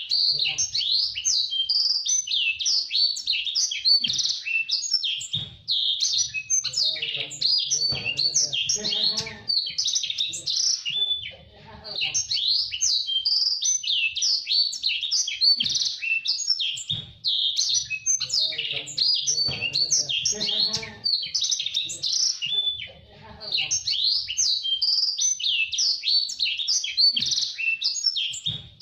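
A blacksang, a blackthroat × sanger canary hybrid, singing a fast, tightly packed high twittering song in long runs, broken by brief pauses about three times.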